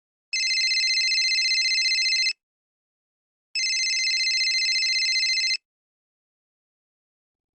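Telephone ringing twice, each ring a steady fluttering trill of about two seconds with a short pause between.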